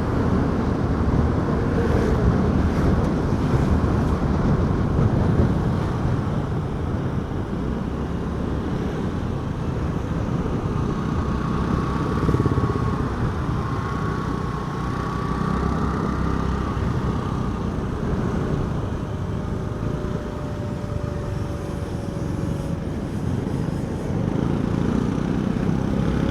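Motorcycle riding on the road, picked up by a lavalier mic inside the rider's helmet: steady engine and wind rumble. A thin whine rises in for a few seconds midway.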